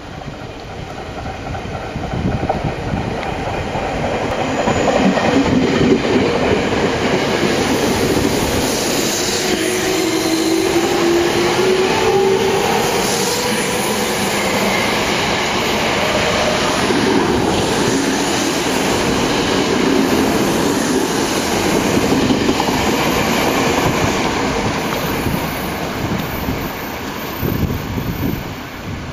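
Tokyo Metro 06 series electric train running through a station without stopping: wheels clattering over the rail joints, growing louder over the first few seconds and holding steady as the cars go by, then easing as it moves away near the end. A whine rises slightly in pitch about ten seconds in.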